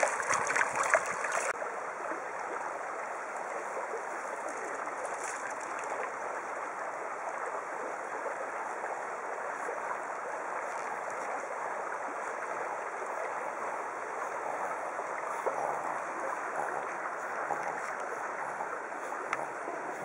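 Shallow river running steadily over a stony bed, a continuous rushing water noise. It is louder and brighter for the first second and a half.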